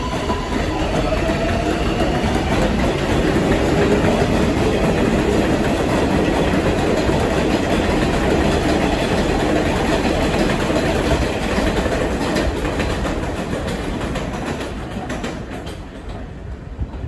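New York subway 7 train of R188 cars running on elevated track, wheels clattering over the rails under a faint rising whine from its traction motors in the first few seconds. The noise holds steady for most of the time, then fades near the end as the train moves away.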